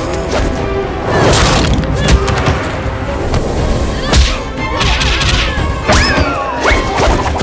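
Cartoon fight sound effects: several sharp hits and whooshes over background action music, with a few sliding pitched effects in the second half.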